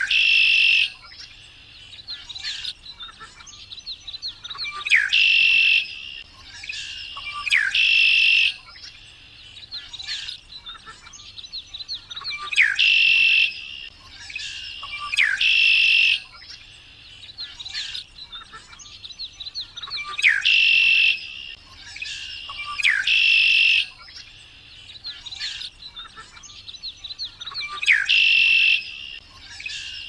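Male red-winged blackbird singing, repeating its song every few seconds, often in pairs: a short gliding note followed by a buzzy trill about a second long, with soft quick chip notes in between.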